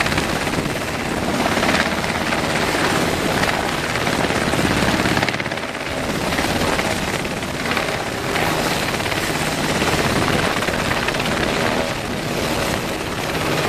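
Coast Guard Jayhawk helicopter, twin turbine engines and main rotor running steadily as it hovers low and eases down to land, the level swelling and easing a little.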